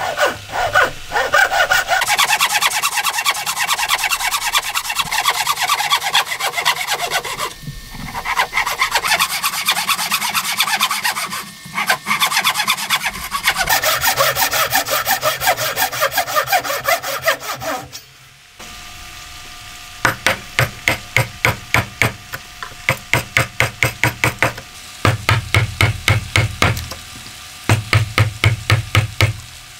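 Hand saw cutting a hardwood block with fast back-and-forth strokes, in three long runs with short breaks. Then, about two-thirds in, a chisel is struck again and again, about two blows a second, chopping the waste out of the dovetail.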